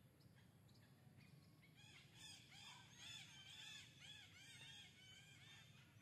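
Faint, rapid high-pitched chirping calls from several animals, short arched notes that overlap at different pitches, starting about two seconds in.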